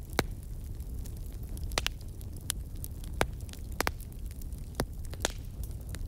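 Fire crackling: sharp pops and snaps at uneven intervals over a low, steady rumble.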